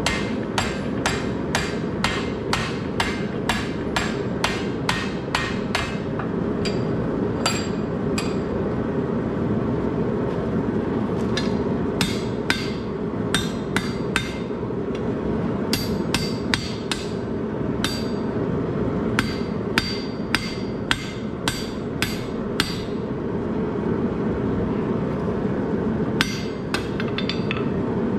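Blacksmith's hand hammer forging a hot steel bar, each blow ringing sharply. The blows come about twice a second in runs with short pauses between them, over a steady rushing noise underneath.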